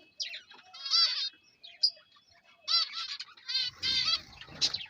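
Caged pet finches calling: several bursts of short, quickly repeated chirping notes, the busiest about a second in and again from about three to four and a half seconds in.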